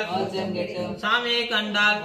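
A voice singing a devotional chant in sliding, drawn-out phrases over a steady low tone.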